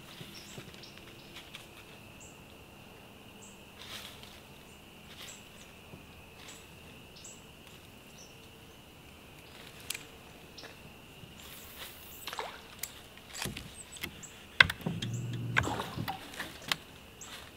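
A steady high buzz of insects over outdoor quiet, with scattered sharp clicks and knocks. Near the end comes a louder cluster of knocks and rustling with a low thud.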